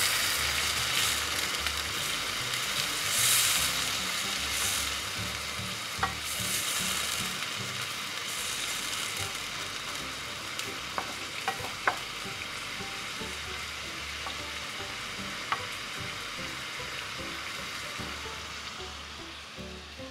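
Sliced field mushrooms and garlic sizzling in a frying pan of oil and butter as a splash of white wine cooks off, stirred with a wooden spoon, with a few sharp clicks. The sizzle gradually dies down as the wine evaporates.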